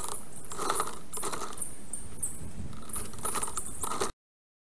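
Sped-up forest sound from a nest camera: a dense run of small clicks and rattles with short high chirps over it. It cuts off abruptly to dead silence about four seconds in.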